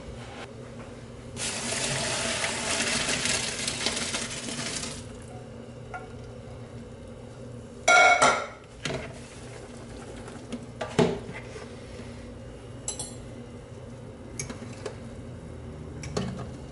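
Boiling pasta water poured from a pot through a plastic colander into a pan below, splashing and rushing for about three and a half seconds. Then cookware knocks and clinks, with a loud clatter about eight seconds in and a smaller knock a few seconds later.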